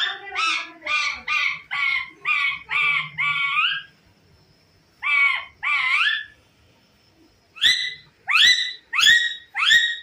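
Pet parakeet calling repeatedly: a quick run of about seven calls, a pause, two more, then five sharper, louder-starting calls near the end.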